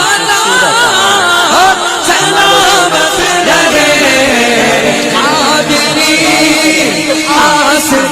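A naat, an Urdu devotional song in praise of the Prophet, sung with ornamented melody lines that bend and waver, over a steadier background of voices.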